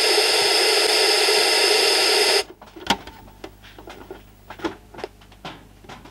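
Loud steady static hiss from the speaker of a GAF 5-inch portable black-and-white TV with no signal. It cuts off suddenly about two and a half seconds in as the set is switched. A few sharp clicks of the switch and handling follow.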